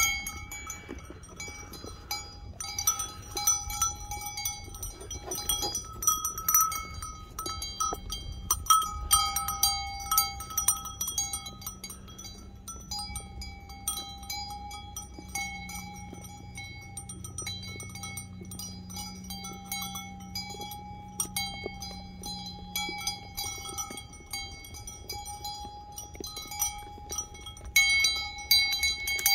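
Bell on a feeding sheep's collar clinking over and over as the sheep eat from feed pans. Its ringing is renewed every moment or so, with scattered clicks from the feeding around it.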